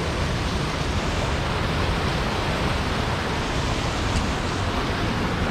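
Creek water rushing steadily over rocks: an even, unbroken hiss.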